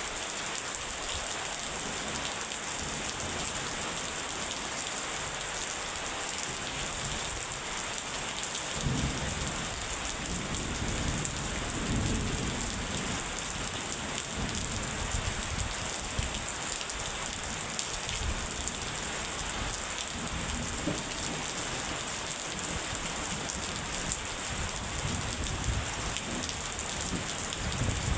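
Steady rain falling, a constant hiss throughout. Thunder rumbles in low about a third of the way through, rolling on and off for several seconds, and swells up again at the very end.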